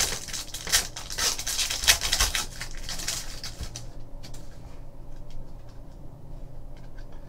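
Foil trading-card pack crinkling as it is torn open, followed by fainter, scattered clicks and rustles as the cards are slid out and handled.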